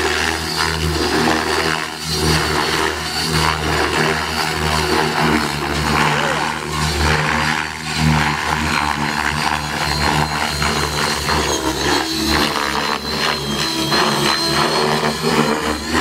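Radio-controlled helicopter flying aerobatics: its motor and spinning rotor blades make a loud, steady sound with a high whine on top, swelling and easing as the rotor load changes through the manoeuvres.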